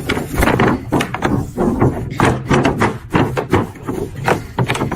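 Irregular knocking and clattering, several sharp knocks a second, with rubbing in between.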